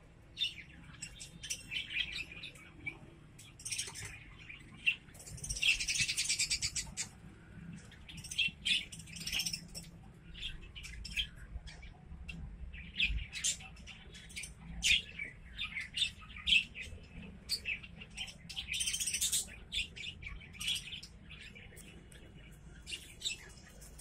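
A flock of budgerigars chirping and chattering, with many short high chirps. Two longer bursts of dense chatter stand out, about five to seven seconds in and again near nineteen seconds.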